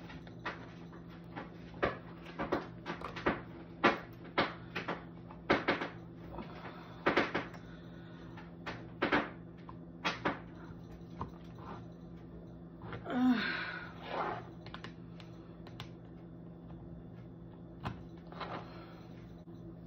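Wire cheese slicer being worked through a block of cheese: its hinged metal frame and wires clack against the plastic base and cutting board in irregular sharp clicks and knocks, with a longer scraping rustle about two-thirds of the way through and another near the end.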